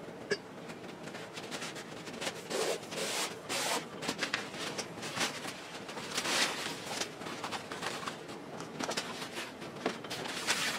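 A car headliner being handled and turned over on a cardboard box: fabric rustling and rubbing in irregular bursts, with a sharp click just after the start.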